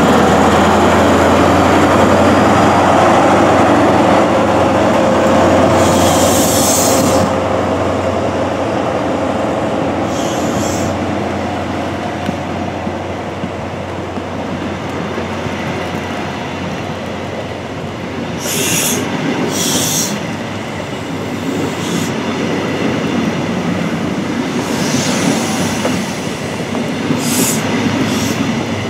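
An HST's Class 43 diesel power car passes slowly, its engine hum fading over the first ten seconds. Its coaches then roll by with wheel noise and short high squeals every few seconds, coming more often near the end.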